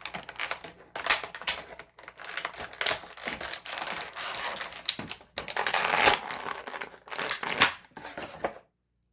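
Plastic packaging crinkling and crackling as it is handled, with many sharp clicks. It stops abruptly near the end.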